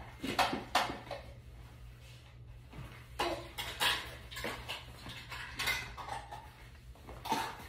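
A handful of sharp, irregularly spaced knocks and clicks, like small hard objects being handled and set down, over a low steady hum.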